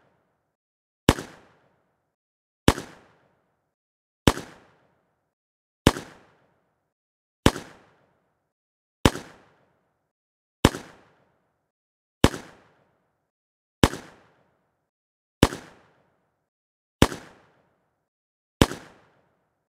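Handgun firing single shots, twelve in all at an even pace of about one every 1.6 seconds, each a sharp crack with a short echoing tail that dies away before the next.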